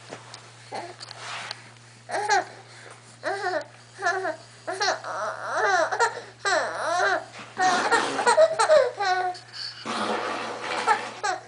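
A baby laughing and squealing in a run of short high-pitched bursts, starting about two seconds in.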